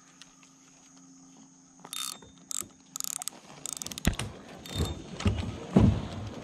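Spinning reel being cranked to retrieve a cast lure: clicking and rapid ticking of the reel's gears and handle, starting about two seconds in. Several louder dull knocks come near the end.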